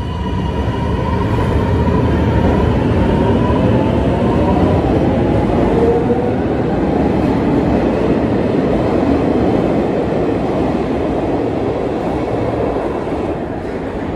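Milan Metro Line 1 train running along an underground platform and away into the tunnel: a steady rumble of wheels on rails, with a whine that fades over the first few seconds. The rumble slowly dies away as the train recedes.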